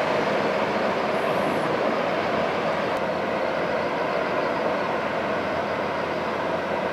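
Steady rushing and splashing of the bow wave breaking along the hull of a large container ship underway, with a low rumble beneath it.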